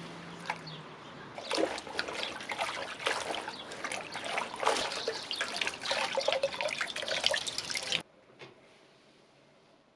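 Water trickling and splashing with many small crackles, cutting off suddenly about eight seconds in.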